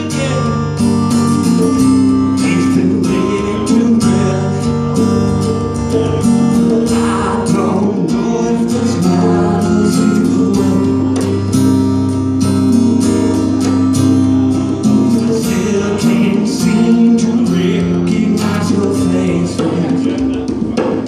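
Live acoustic guitar strumming chords, with conga drums played by hand alongside in a steady rhythm, in an instrumental passage between sung lines.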